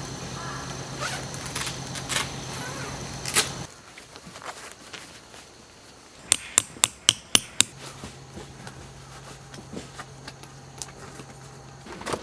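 Tent pegs being hammered into the ground: a few single knocks, then a quick, even run of about eight sharp strikes midway.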